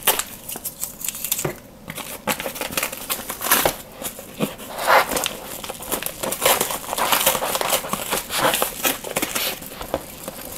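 Kraft padded mailer envelope crinkling and rustling as hands handle it and pull open its glued flap, in a quick, irregular run of crackles.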